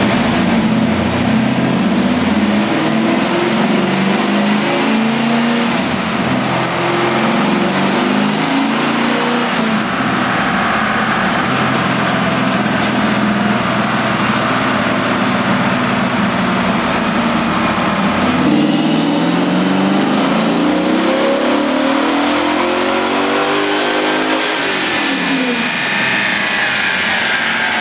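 Chevrolet LT1 V8 with an LT4 conversion, hot cam and longtube headers, running on a chassis dyno. The engine note wavers at first, then holds steady. About 18 seconds in it rises steadily for some six seconds in a full-throttle pull, then falls away as the throttle closes.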